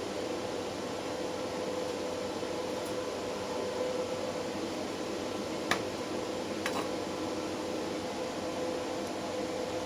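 CNC plasma torch cutting 10 mm S255 steel plate: a steady hiss with a constant hum, and two sharp clicks a little over halfway through.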